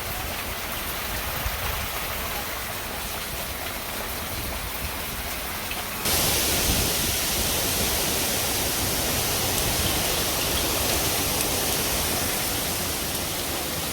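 Steady hiss of heavy hurricane rain, which turns abruptly louder and brighter about six seconds in.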